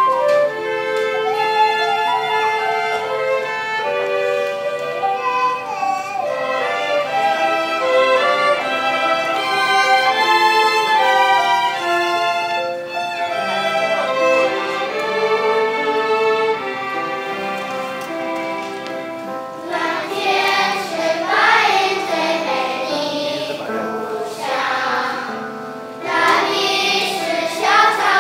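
Children's choir song performance: an instrumental introduction of held, steady notes, then children's voices begin singing over the accompaniment about two-thirds of the way through.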